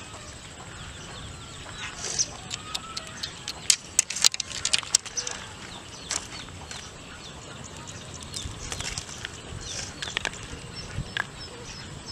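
Rustling, slapping and sharp clicks as a freshly hooked fish thrashes and is handled into a woven bamboo basket; the loudest flurry of clicks comes about four to five seconds in, with a smaller one near nine seconds.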